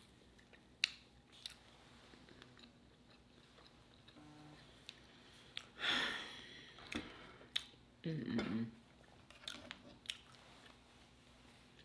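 Close-miked mouth sounds of someone eating fried catfish: quiet chewing with sharp wet clicks every second or so, and a short hummed 'mm' about eight seconds in.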